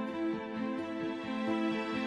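Gentle, slow background music with held, sustained notes.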